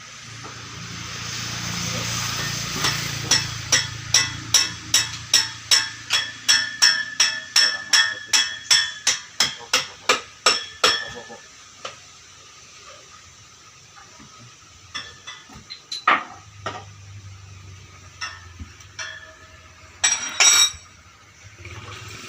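Hammer beating on metal, about three ringing blows a second for some eight seconds, then a few scattered knocks and a louder clattering strike near the end.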